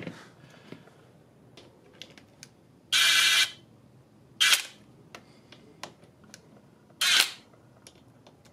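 Hand tools at work on the engine: three sharp mechanical noises, the first about three seconds in and lasting about half a second, the others near four and a half and seven seconds, with light clicks and taps between them.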